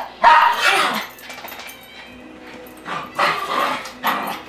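Small dogs barking in play, in loud short bursts: one in the first second, then more about three and four seconds in.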